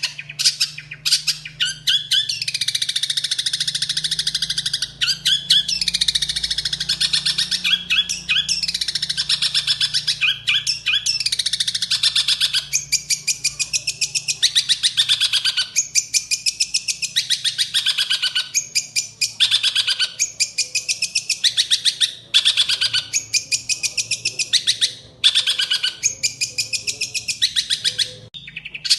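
A songbird singing a fast, scratchy chattering song: one long unbroken run at first, then repeated falling phrases about every second or two with short breaks between them.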